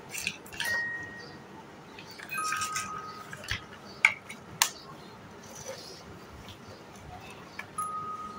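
Large plastic building blocks clacking and knocking together as they are pressed onto a row, with the sharpest clacks about four and four and a half seconds in. A few short, clear ringing tones sound among them, near the start, around two and a half seconds in and near the end.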